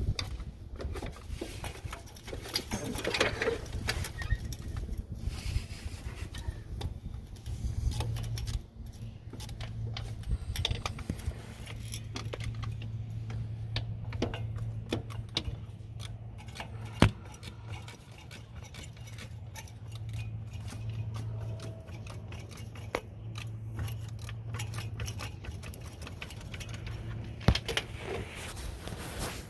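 Hand tools and metal parts clinking and rattling in scattered sharp clicks, with a low steady hum through the middle stretch.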